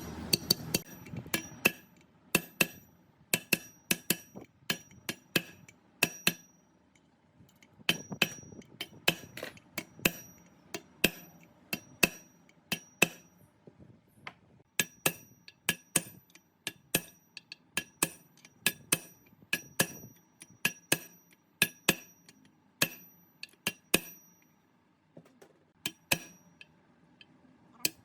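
Hammer striking a steel part again and again. Each sharp metal blow rings at the same high pitch, coming one to three a second in uneven runs with brief pauses.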